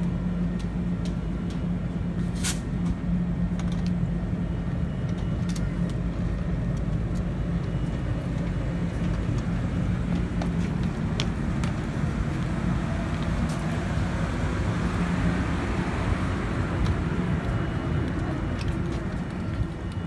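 Stopped Amtrak Pacific Surfliner train with its diesel locomotive idling: a steady low hum with one held tone and a rumble beneath it. A sharp click sounds about two and a half seconds in.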